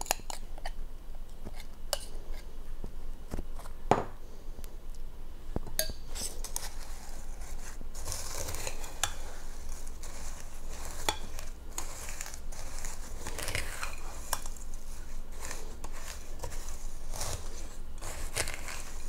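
Crunchy chow mein noodles being stirred in a bowl with a spoon. A dry crackling rustle of noodles with the spoon knocking and scraping against the bowl, on and off.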